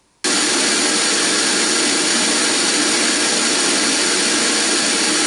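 Pink noise test signal played loud through a Diamond Audio Pro 6.5-inch motorcycle speaker for a sound pressure level measurement: a steady, even hiss that switches on abruptly just after the start and holds at a constant level.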